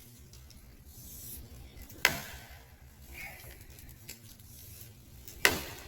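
Two blows of a hand-forged camp axe with a 2-pound head chopping into a downed pine, one about two seconds in and the second about three and a half seconds later.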